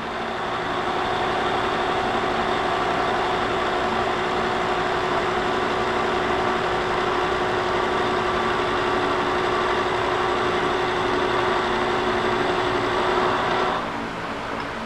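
A 13/16-inch roughing end mill (hog mill) in a vertical milling machine takes a light cut across the end of a metal bar, a steady cutting sound with a constant tone over the running spindle. Near the end the cutting sound drops away and only the machine's running hum is left.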